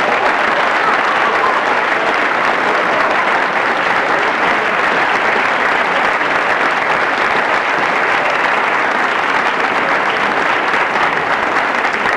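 Oil burner on a Williamson furnace running with a loud, steady, rough rushing noise, the sound of a bad burner motor.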